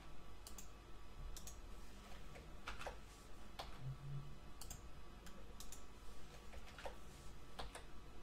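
Computer keyboard key presses and mouse clicks, about nine short, sharp clicks spread irregularly.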